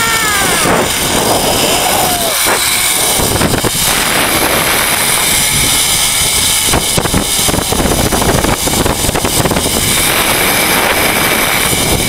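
Zip-line trolley pulleys running fast along a steel cable: a loud, steady whirring rush mixed with wind blowing on the rider-mounted microphone.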